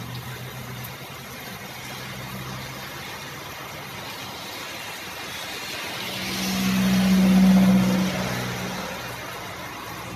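Steady rain hiss, with a motor vehicle passing on the wet road. Its engine hum and tyre hiss swell to the loudest point a little past the middle, then fade. A lower engine hum dies away in the first few seconds.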